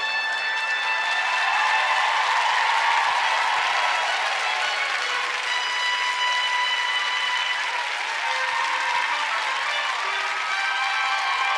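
Studio audience applauding steadily, with a few long held trombone notes sounding over the clapping.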